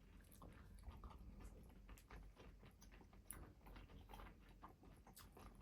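Faint chewing with small wet mouth clicks and smacks, someone eating momo dumplings.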